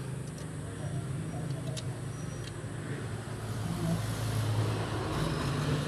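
Ford Everest's 2.2 diesel four-cylinder engine running after its cylinder head gasket change, with a steady low hum that grows louder about three and a half seconds in.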